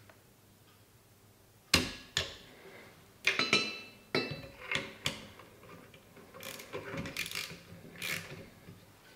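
Small torque wrench tightening a rifle's front action screw: a run of sharp metallic clicks and ratchet ticks, the loudest about two seconds in and a ringing cluster a little after.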